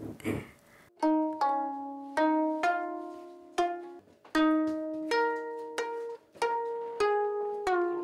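A gayageum, the Korean plucked zither, played slowly one note at a time. Each plucked note rings and fades before the next, about a dozen notes starting about a second in.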